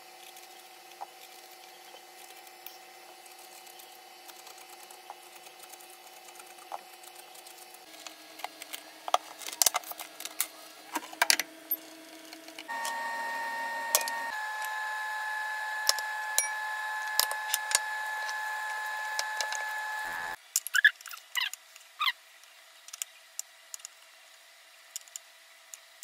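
Food-preparation sounds: a knife, then a spatula and a spoon clicking and scraping against glass bowls and aubergines, in short irregular knocks. Under them runs a steady appliance hum that jumps to a different pitch and loudness at each change of scene, and is loudest in the middle.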